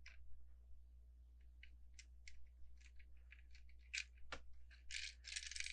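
Faint plastic clicks and taps of Lego pieces being handled, with two slightly louder clicks about four seconds in and a short hiss near the end.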